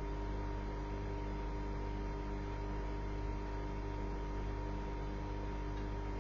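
Steady electrical hum with a few fixed tones over an even hiss, unchanging throughout.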